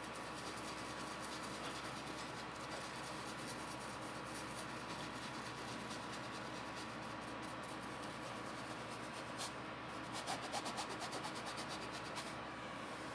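Paintbrush scrubbing oil paint onto fabric, a soft dry rubbing, with a quick run of short scrubbing strokes near the end.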